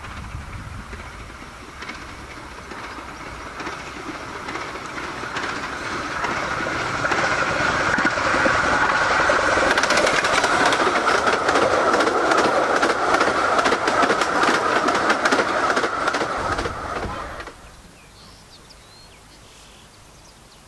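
Miniature steam train approaching and passing close by, its running noise building to a loud rhythmic clatter as it goes past. About seventeen seconds in it cuts off abruptly to faint outdoor ambience.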